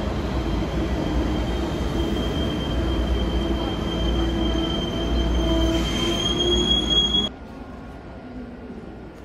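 Deutsche Bahn ICE train running along the platform: a steady rumble with a thin high whine that rises slightly near the end. About seven seconds in it cuts off suddenly, leaving a much quieter station hum.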